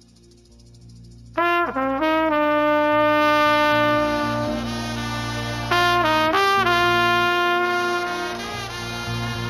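Trumpet blown in long held blasts. The first comes in about a second and a half in with a quick upward scoop into the note, and a second blast with bending pitch starts near six seconds.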